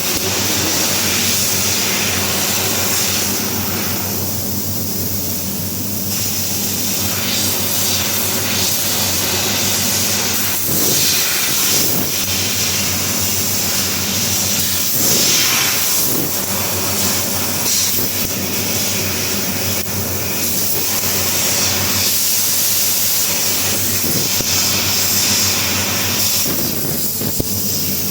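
CNC fiber laser cutting mild steel sheet: a steady hiss from the cutting head over a low machine hum, swelling briefly now and then.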